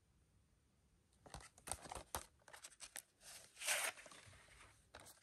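A plastic Blu-ray case and its cardboard slipcover being handled: a run of light clicks and rubs, then a louder scraping rustle a little past halfway as the case slides out of the sleeve, and a couple more clicks near the end.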